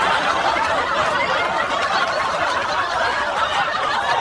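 A group of people laughing together, many overlapping voices in a steady wash of laughter.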